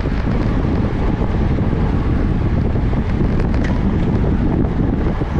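Wind buffeting the microphone of a camera riding on a road bicycle at speed: a steady, dense rush of noise, heaviest in the low end.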